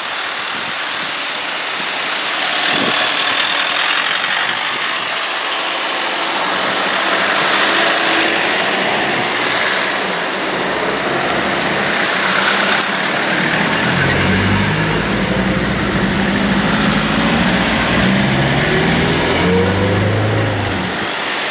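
Ambulance vans driving past close by one after another, with engine and tyre noise. About two-thirds of the way in, the low, steady engine of a Mercedes Sprinter ambulance comes up as it pulls out, rising a little in pitch near the end.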